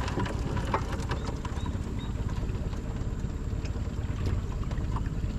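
Small boat engine idling steadily, a low, even running sound.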